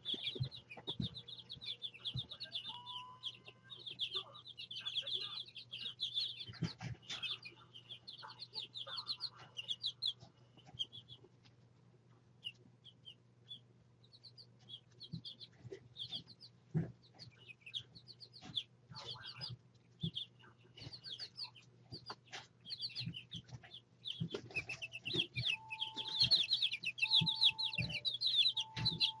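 Baby chicks peeping: a chorus of rapid, high, falling peeps that thins out to scattered calls in the middle and builds back into a dense chorus near the end.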